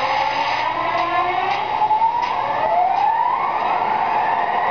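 Proto-Sounds 2.0 diesel engine sound playing from the onboard speaker of an MTH Premier Union Pacific SD40-2 model locomotive: the engine revving up, heard as a whine that climbs in pitch, with several rises overlapping.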